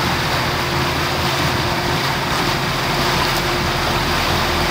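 Motorboat engines running steadily under way, a low even hum, with the rush of the churning wake.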